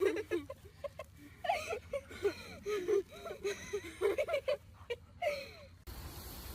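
A dog whining and whimpering in a string of short cries that rise and fall in pitch. The cries stop suddenly near the end.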